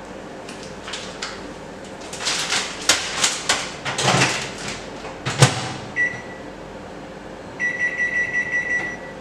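Microwave oven being loaded and started: a bag of frozen vegetables rustles, and the door shuts with a sharp click about five seconds in. The keypad then beeps once, followed by a quick run of beeps near the end.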